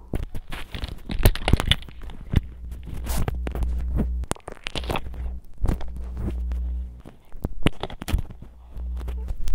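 Sticky slime being squished and pulled right at a phone's microphone: irregular wet pops, clicks and crackles over a low handling rumble.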